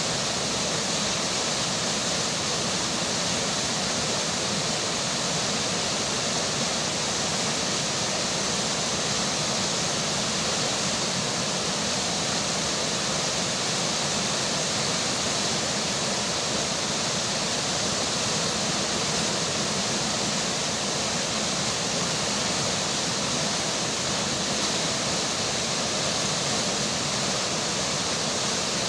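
River water flowing and rain falling together, an even, unbroken rushing with no separate drops or splashes standing out.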